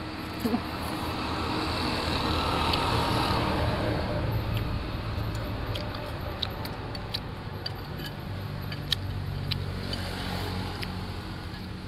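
A motor vehicle passing close by, its engine and road noise swelling over the first few seconds and then fading to a low hum. Light sharp clinks of metal spoons and forks against ceramic soup bowls come through, mostly in the second half.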